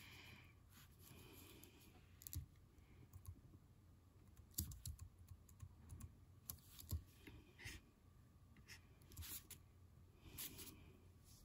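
Faint, irregular clicks and taps of a computer keyboard and mouse, a dozen or so spread unevenly, while an image is being edited on screen.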